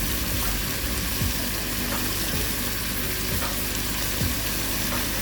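Chicken pieces sizzling as they sear in hot oil in a pot, a steady frying hiss, with a few faint clicks spread through it.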